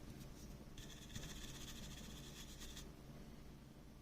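Toothbrush scrubbing alcohol over a circuit board to clean off flux residue: a faint, scratchy hiss lasting about two seconds.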